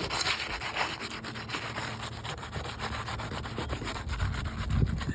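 Asphalt roof shingles being worked loose and lifted by hand, rubbing and scraping against the shingles beneath with a steady gritty sound full of small crackles.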